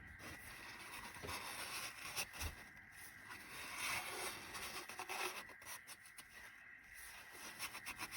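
Faint, irregular rubbing and scraping of a rag wiping the engine block's fuel pump gasket surface clean with acetone, with small ticks here and there.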